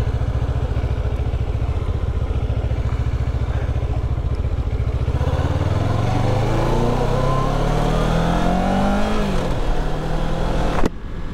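Kawasaki Ninja 650R parallel-twin engine idling with an even, pulsing throb. About five seconds in, the revs climb steadily as the bike pulls away and accelerates, then ease off briefly. A sharp click comes just before the end.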